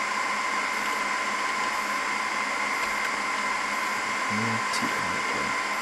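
Steady whir of computer cooling fans, with a constant high whine over it, from the running NAS server and nearby machines.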